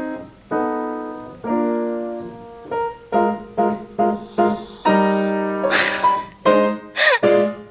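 Piano being played: single notes and chords struck one after another, each ringing and fading away. A short hissy rasp is heard about six seconds in, and a quick falling glide just after seven.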